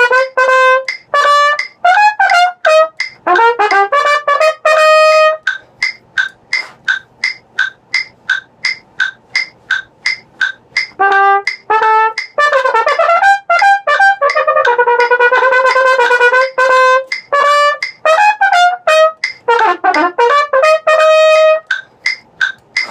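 Solo trumpet playing a movement, with held notes and quick runs, over a steady metronome ticking about two and a half times a second. The trumpet rests for about five seconds a few seconds in, leaving only the metronome, then plays on until near the end.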